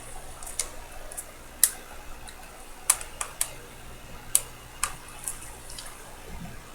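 Sharp, irregular little clicks of small metal watchmaker's tools on the parts of a Poljot 3017 watch movement being assembled, about eight in all, spaced unevenly over a faint steady hum.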